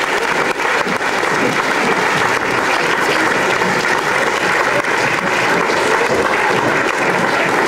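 Large audience applauding, a dense, steady clapping throughout.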